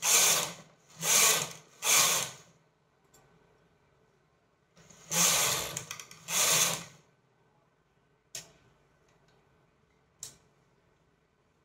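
Domestic flatbed knitting machine carriage pushed back and forth across the needle bed, knitting plain rows, with a harsh rasping whirr on each pass: three quick passes, a pause, then two more. Two sharp single clicks follow later.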